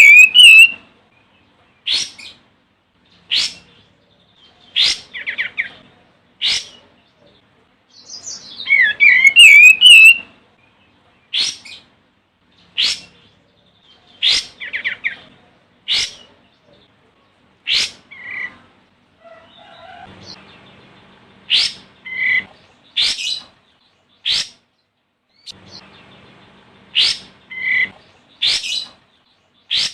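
Olive-winged bulbul calling: two bursts of rapid warbling song about nine seconds apart, one at the start and one near ten seconds in. Between and after them come short sharp call notes repeated roughly every one and a half seconds.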